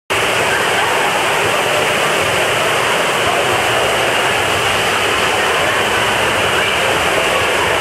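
Water rushing steadily out of a family raft water slide's tube exits and churning in the splash-down pool: a loud, even rush.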